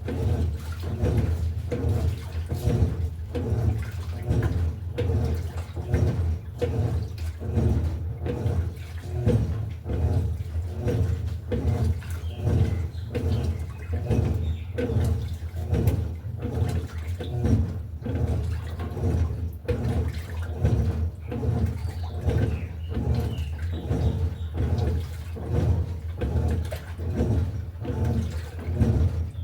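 Electrolux LTE08 top-loading washing machine agitating a load in water: a steady motor hum under rhythmic swishing and sloshing, roughly one and a half strokes a second.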